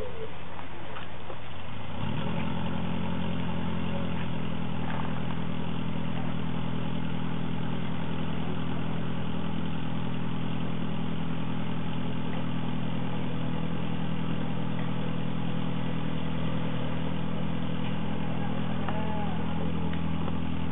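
An engine running with a steady low drone, coming in abruptly about two seconds in.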